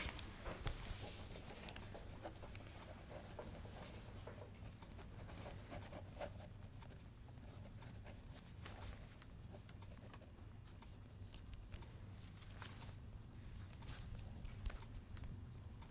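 Faint pens scratching on paper during a written test, with scattered small clicks and taps over a low steady room hum.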